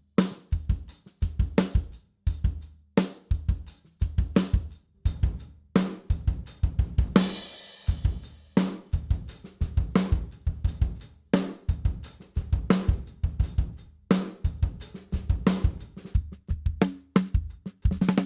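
Recorded acoustic drum kit playing a steady groove of kick, snare and hi-hat, with a cymbal crash about seven seconds in. It is heard through close microphones, with the U47 mono room microphone muted and brought back to show how much low end the room mic adds.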